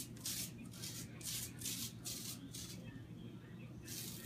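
White athletic tape being pulled off its roll in a series of short peeling pulls, about three a second, stopping about two and a half seconds in and starting again near the end.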